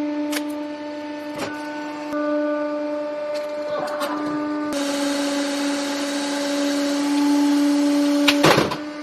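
Hydraulic press running with a steady pitched motor-pump hum, while the object under the ram cracks sharply several times. About halfway through, a loud hiss sets in, and a loud crack comes near the end.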